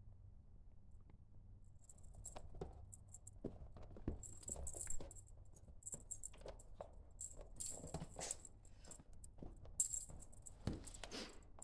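A small jingle bell shaken in irregular bursts of jingling, starting about two seconds in, with light clicks and a few soft thumps between the shakes.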